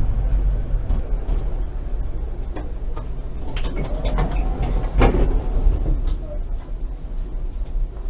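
Konstal 105Na tram running along the track with a steady low rumble, with a cluster of sharp clicks and knocks from about halfway in, the loudest near the end of that cluster.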